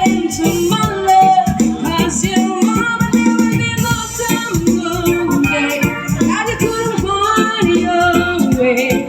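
Music playing: a song with a singing voice over a steady percussion beat.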